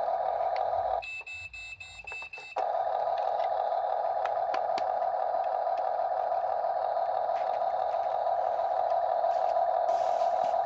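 Huina 1/14 RC excavator just after its battery is plugged in: a steady electronic buzzing tone from the model. It breaks off about a second in for a short run of high beeps and clicks, then comes back and holds steady.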